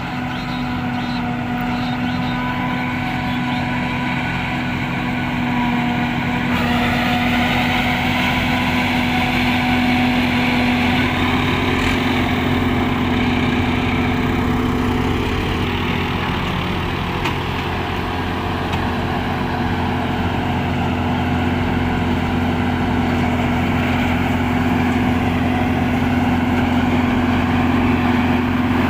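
Corn harvester engine and machinery running steadily with a continuous hum; the sound shifts in character about six seconds in.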